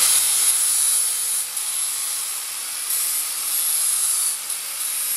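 A handheld grinder at full speed with a high steady whine, grinding metal off a steel fabrication piece; the grinding noise swells and eases as pressure on the work changes.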